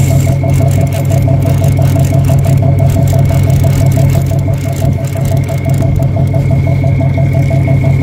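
A fishing boat's engine running steadily: a loud low hum with a steady high whine and a fast, even pulsing over it.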